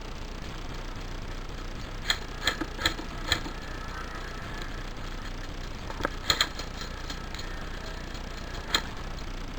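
Airsoft guns firing single shots as sharp snaps: four about half a second apart a couple of seconds in, a quick cluster of three around the middle, and one more near the end, over a steady hiss.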